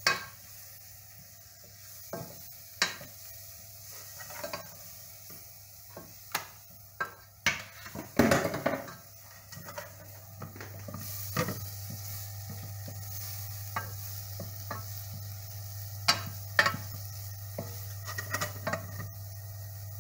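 Wooden spoon stirring and scraping diced pancetta with butter and flour in a pan, knocking against the pan at irregular intervals, with the heaviest run of knocks about eight seconds in. The frying sizzles faintly underneath, over a steady low hum.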